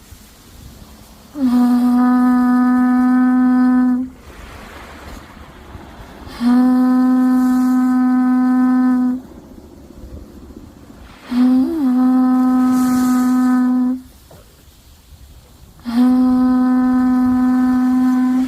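Horagai, the yamabushi conch shell trumpet, blown in four long, steady notes of the same low pitch, each about three seconds with short pauses between. The third note opens with a brief wobble in pitch.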